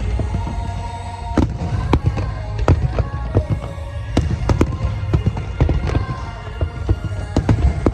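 Aerial fireworks shells bursting in rapid, irregular succession over a continuous low rumble, with music playing underneath.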